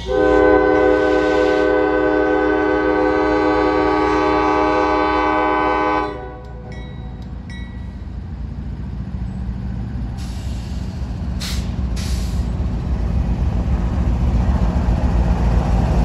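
Freight train's lead diesel locomotive sounding one long horn blast of about six seconds. After the blast, the rumble of the locomotives' engines and wheels on the rails grows louder as the locomotives and double-stack container cars pass close by.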